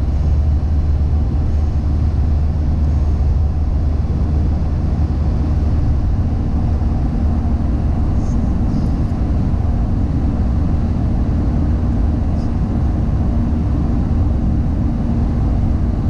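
Steady low rumble of a car's engine and tyres on the road, heard from inside the moving car's cabin, with a faint steady hum above it.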